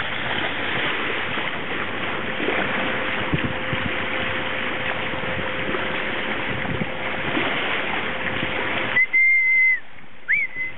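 Sea water rushing past a moving boat, with a steady engine hum underneath. About nine seconds in the rush cuts off suddenly and two loud high whistles follow: the first held level, the second swooping up and falling back.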